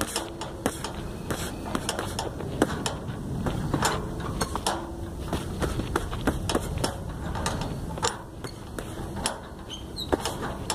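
Boxing gloves punching a hanging 3-litre plastic water bottle in quick, irregular combinations: sharp smacks, several a second, with the metal hook and rings it hangs from clinking as it swings.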